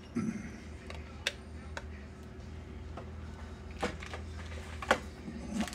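A plastic spoon clicking and scraping against a tin can and the fruit as canned peach pie filling is spooned out: a few sharp clicks, with a soft thump near the start and another near the end, over a low steady hum.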